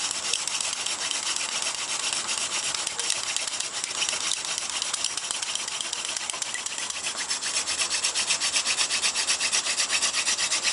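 Hand-drill friction fire: a horseweed spindle spun fast between the palms, grinding in the notch of a pine board with a steady rasping rub, grinding out hot dust toward an ember. The pulsing of the strokes grows stronger and more even over the last few seconds as the speed picks up.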